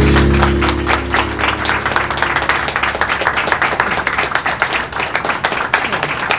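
A small group of people clapping steadily, over a guitar chord that rings out and fades away in the first couple of seconds.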